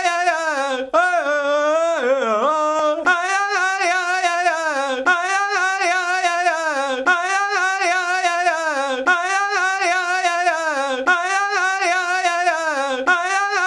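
A teenage boy's high, wavering laugh, looped so that the same two-second stretch repeats over and over.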